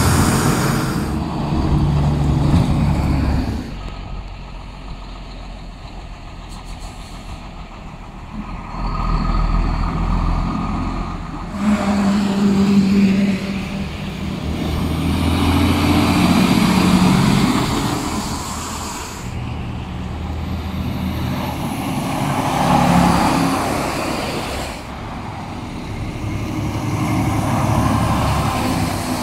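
Heavy tractor-trailers loaded with snow driving past one after another. Their diesel engines rumble and their tires hiss on the wet road, swelling and fading as each truck goes by.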